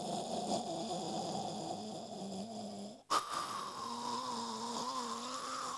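A man making a long, droning, throaty vocal sound effect into a handheld microphone. It cuts off about three seconds in and starts again with a sharp burst.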